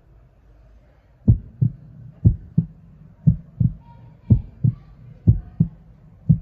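Heartbeat sound effect: low, paired lub-dub thumps about once a second, starting about a second in.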